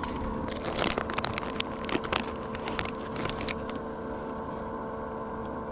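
Crinkling and crackling of a plastic soft-bait bag being rummaged through and handled, strongest from about half a second to three and a half seconds in, over a steady low hum.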